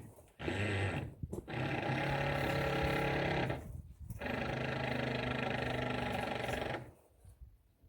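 A machine motor running at a steady pitch in two stretches of about three seconds each, with a short pause between, then stopping.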